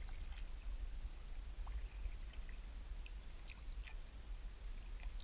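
Kayak paddling: water trickling and dripping off the paddle blade with small light splashes, over a low steady rumble.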